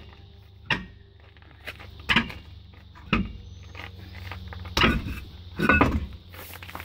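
Heavy metal knocks and clunks, about a second apart, as a stuck dual rear wheel on a Chevy P30 motorhome chassis is worked loose and pulled off its hub studs. A steady low hum runs underneath.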